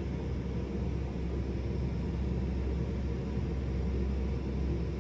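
Steady low rumble of room noise with no gunshot, while a pistol is held on aim.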